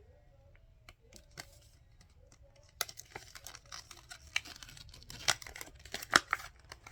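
Thin plastic zip-top bag crinkling and crackling as it is handled. A few faint clicks come first; about three seconds in a dense run of sharp crackles starts.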